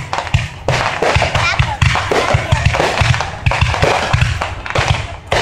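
Fireworks going off in quick succession: a dense run of deep booms from bursting shells, several a second, with crackle between them and a short dip near the end.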